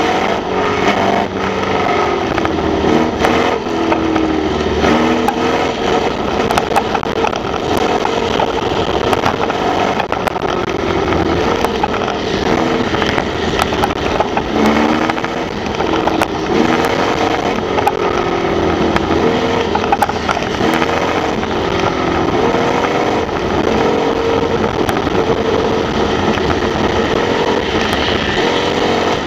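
Onboard sound of a Formula Vee race car's air-cooled Volkswagen flat-four engine at racing speed, its revs repeatedly climbing and dropping as the driver works through the gears, over a steady rush of noise.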